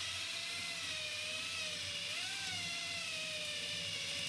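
Drill boring into a steel plate: a steady motor whine whose pitch sags and recovers a little as the bit bites.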